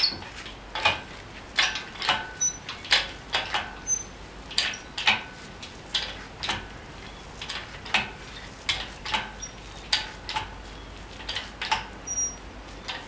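Irregular sharp metallic clicks and knocks, about one or two a second, with a few faint high squeaks. This is the shop crane's hydraulic ram being pumped and the home-made compressor attachment working against a strut coil spring as the spring is compressed.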